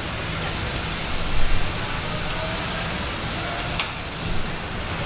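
Steady din of an automotive assembly plant floor, with a sharp click about four seconds in.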